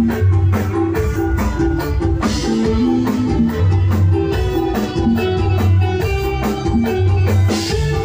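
Music played loud through a large PA sound system with a bank of subwoofers during a sound check: a DJ-style track with a heavy, pulsing bass beat, percussion and a repeating melodic line.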